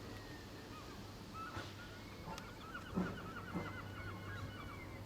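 A bird calling a rapid series of short, evenly spaced notes, over a steady low hum. A few dull knocks sound through it, the loudest about three seconds in.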